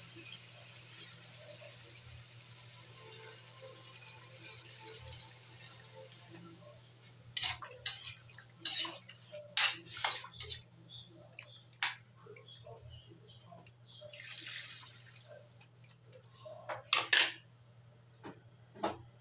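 Water pouring from a pitcher into a metal wok of chicken and vegetables for several seconds. Then a metal ladle stirs and knocks against the wok in a run of sharp clanks, with a short swish of the broth in between.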